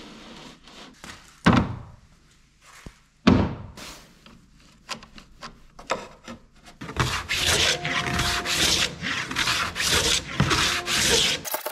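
A wooden-bodied hand plane taking shavings off a wooden board in quick, even strokes, about two a second, from about seven seconds in. Before that, two heavy knocks and scattered light clicks.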